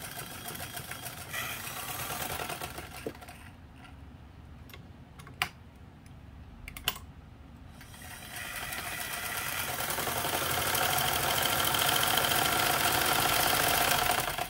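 Motor-driven red Singer 15 sewing machine stitching in two runs: a short run of about three seconds with the reverse lever in use, then, after a quieter pause broken by two sharp clicks, a longer run that gathers speed from about eight seconds in and stops at the end.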